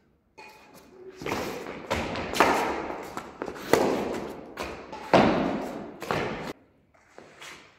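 Badminton rally: rackets striking a shuttlecock, a series of sharp hits about a second apart with footfalls on concrete, each hit fading away quickly; the rally sound cuts off suddenly near the end.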